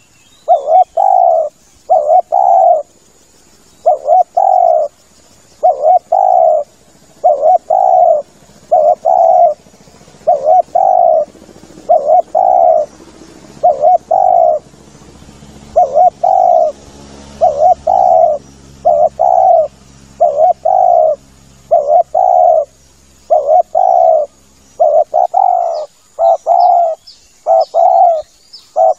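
Spotted dove (tekukur) cooing over and over: short coo notes in twos and threes, repeated about every second and a half, loud and close, as a decoy lure call. Faint high chirps come in near the end.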